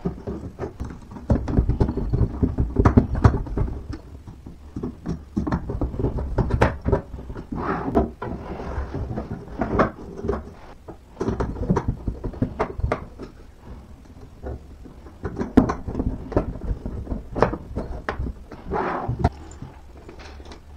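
Irregular knocks, clunks and scrapes as a drawer of an IKEA Alex drawer unit is handled and slid in and out of its white carcass during assembly.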